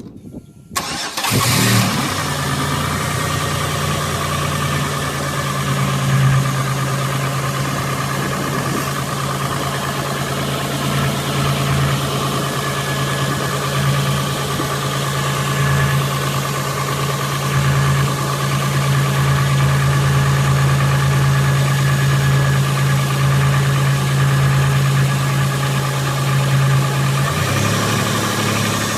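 Car engine starting about a second in, then idling steadily, its note changing near the end; the running engine carries the valve-lifter noise it is being recorded for.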